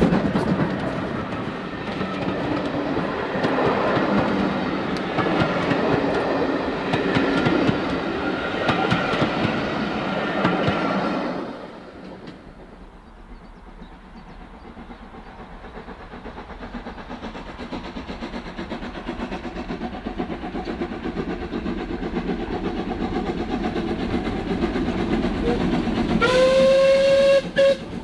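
A train running with rail clatter and loud working noise, which cuts off abruptly about eleven seconds in. A quieter train sound then builds up steadily, and near the end the train sounds one whistle blast of just over a second, rising in pitch as it starts.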